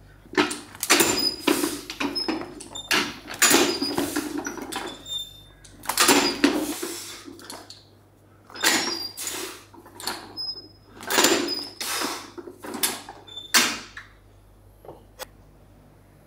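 Repeated scraping and rattling bursts from a banded landmine barbell being lifted and pressed for quick reps, one burst for each movement, with short high squeaks between them.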